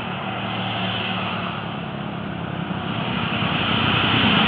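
Tour bus engine running as the bus passes on the road uphill, getting louder over the last second or so.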